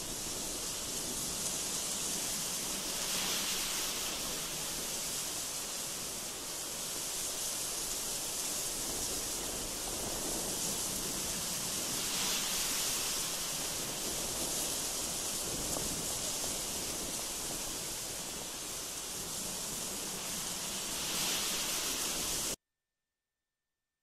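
Steady rushing hiss of noise, like wind or a waterfall, even throughout with slight swells. It cuts off suddenly near the end, leaving silence.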